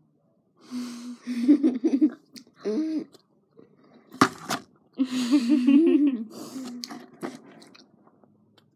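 Two girls making closed-mouth hums and muffled giggles while chewing sweets, in two stretches with one sharp knock about four seconds in.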